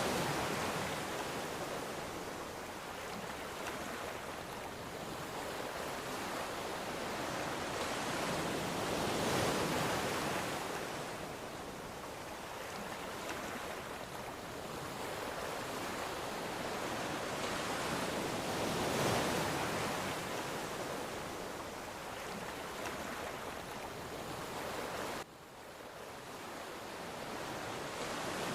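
Ocean surf washing ashore in a continuous rush, swelling and fading as waves break about every nine to ten seconds. Near the end the level drops suddenly, then builds back up.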